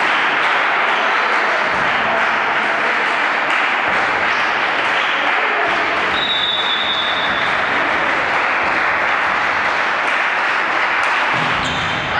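Spectators clapping steadily, a dense patter of many hands, with a short high whistle tone about six seconds in.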